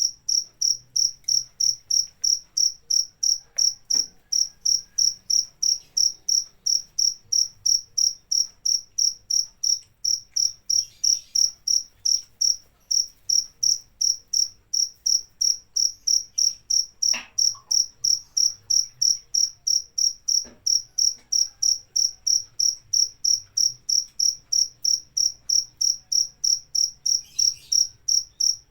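Cricket chirping in a steady, even rhythm of about three high-pitched chirps a second.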